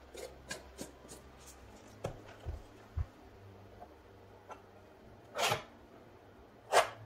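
Palette knife working paint on a stretched canvas: a few faint clicks and two soft low knocks, then two short scraping strokes near the end.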